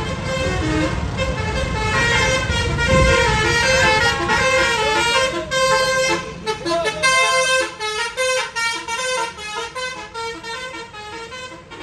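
Tour bus passing with its basuri musical horn playing a quick tune of short notes that step up and down in pitch. The bus's engine rumble swells to its loudest about three seconds in, then fades while the horn tune carries on.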